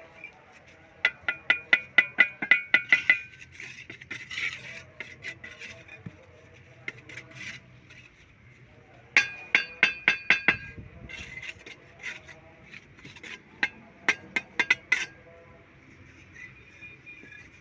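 Quick runs of ringing metallic taps, several a second, in three bursts, as a metal tool strikes something hard.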